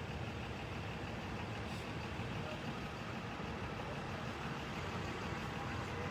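Steady low rumble of vehicle engines and traffic on the expressway.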